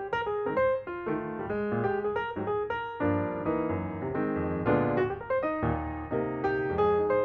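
Background piano music, notes played one after another and chords in a gentle, flowing line.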